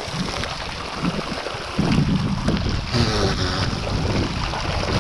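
Water from stone spouts pouring and splashing over a person's head and onto a close microphone as he passes beneath them, with wind noise on the microphone. The splashing grows louder about two seconds in.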